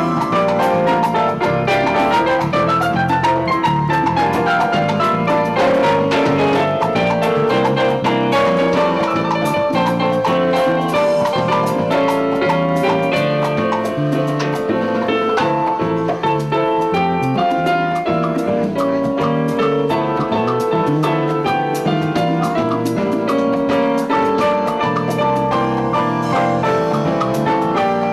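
Live Latin band playing an instrumental passage, led by an SP76 digital stage piano over percussion and drums.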